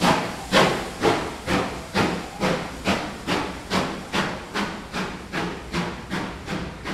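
Steam locomotive chuffing at a steady pace of about two exhaust beats a second over a constant hiss of steam, the beats fading a little as it goes.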